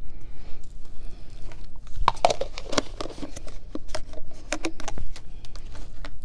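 Thin plastic deli container handled and poked with a plastic fork, the plastic crinkling and clicking in a quick run of sharp taps and crackles, thickest between about two and five seconds in.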